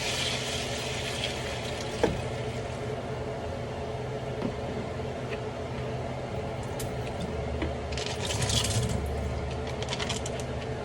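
Tap water running steadily into a bowl of dry macaroni as it is rinsed, with a single sharp clink about two seconds in.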